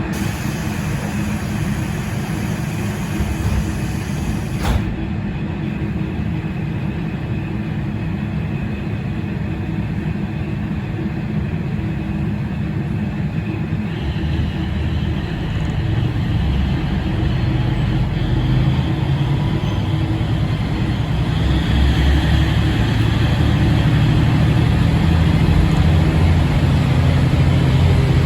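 JR Shikoku KiHa 40/47 series diesel railcar running, a steady engine and running noise heard from on board, with one sharp click about five seconds in. The engine note grows louder and stronger over the second half.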